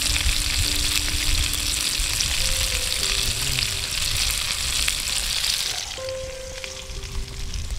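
Tomato wedges and tofu cubes sizzling in hot oil in a wok as they are fried briefly; the hiss stops abruptly about six seconds in.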